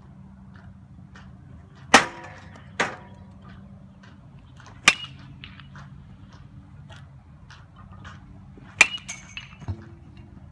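A baseball bat hitting pitched balls in batting practice: three sharp, ringing cracks a few seconds apart, each followed by a smaller knock.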